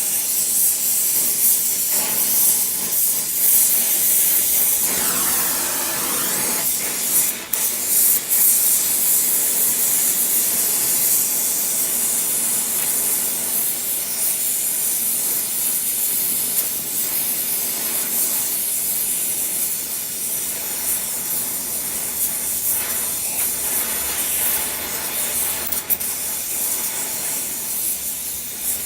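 Gas brazing torch flame hissing steadily during brazing, with a couple of brief dips in the hiss.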